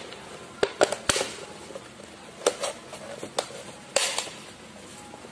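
A cardboard sheet and a clear plastic bottle being handled on a wooden table: scattered sharp crackles and taps as the cardboard is wrapped around the bottle, the loudest cluster about a second in.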